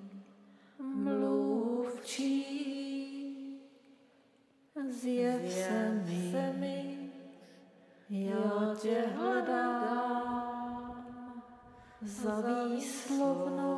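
A woman singing unaccompanied in Czech, slow drawn-out notes in four phrases with short breaks between them.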